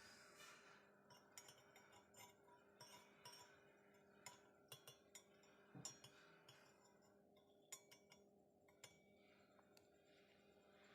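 Near silence: faint, scattered light clicks and clinks over a low steady hum.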